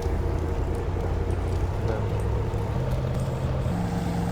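Elevator car running: a steady low rumble and hum inside the cabin, with a motor tone that steps up in pitch about three seconds in as the car speeds up.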